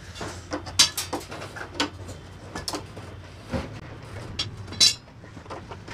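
Scattered metallic clicks and knocks of a steel T-handle wrench turning a bolt, with the plastic side panel of a motorcycle being worked loose, over a low steady hum. A few knocks stand out, about a second in and near the end.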